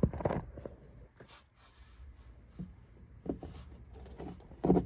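Scattered knocks, clicks and scrapes of hands and tools working at the plastic underbody cover beneath the car, with a sharp knock at the start and a louder one near the end.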